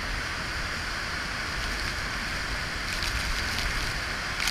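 Large waterfall pouring into a plunge pool close by: a steady rushing roar of falling and churning white water.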